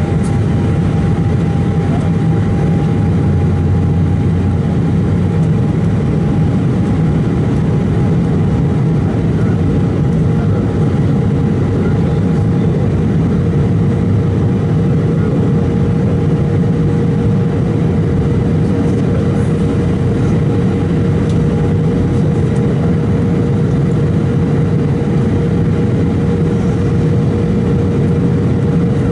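Cabin noise of an Embraer 190 in flight: the steady drone of its GE CF34-10E turbofan engines and the rush of air over the fuselage. A low rumble carries two steady whining tones.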